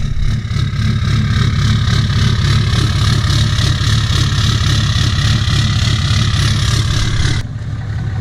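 Vehicle engine idling steadily, with a higher hiss over it that cuts off suddenly near the end while the engine runs on.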